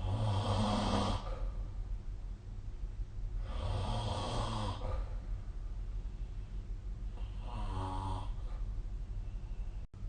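A person snoring in their sleep: three snores, each a little over a second long, coming about every three and a half seconds.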